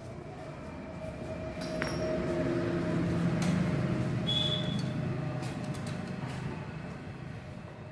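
A motor vehicle's engine grows louder and fades away again over several seconds, with light metallic clinks and taps of hand tools.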